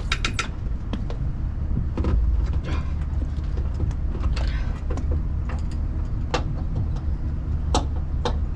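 Chevy 1500 van engine idling as a steady low rumble, with scattered sharp clicks and knocks at irregular moments.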